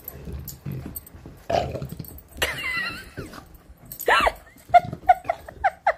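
Puppies play-fighting: low growling, then a high wavering squeal about halfway through, a loud yelp near four seconds, and a quick string of short yips, about three a second, near the end.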